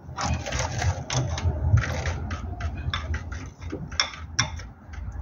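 Irregular metallic clicks and scraping from a spanner working the bleed nipple of a Hillman SuperMinx clutch slave cylinder while the clutch hydraulics are bled, over a low steady rumble.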